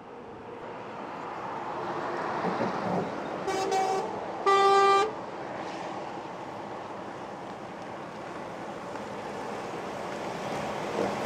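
Convoy of heavy trucks driving past, with engine and tyre noise building as they approach. A truck horn sounds twice: a short toot about three and a half seconds in, then a louder half-second blast a moment later.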